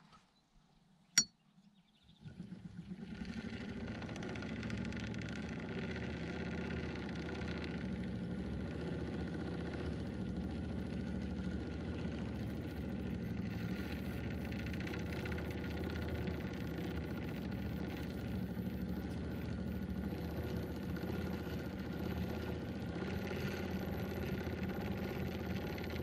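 1904 Singer hand-crank sewing machine turned steadily by its crank, running evenly, with its bobbin winder now driven by a rubber-lined wheel so that it turns and winds thread. A single sharp click about a second in, and then the running starts about two seconds in.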